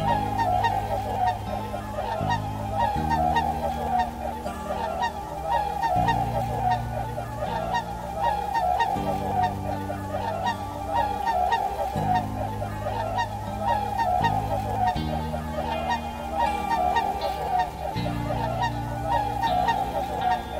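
A flock of swans calling constantly, many short calls overlapping into a continuous chorus, over background music with slow, sustained low chords.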